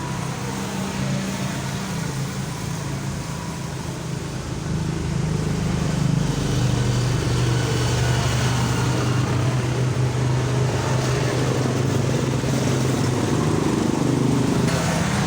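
A steady low engine hum that grows louder about four and a half seconds in.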